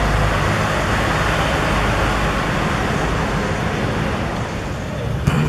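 Steady rushing outdoor background noise, heavy in the low end, with one sharp knock near the end.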